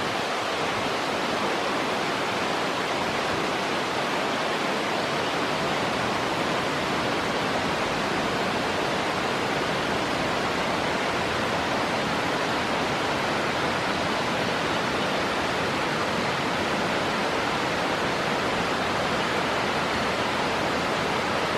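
Waterfall: a steady, unbroken rush of falling water that cuts off suddenly at the very end.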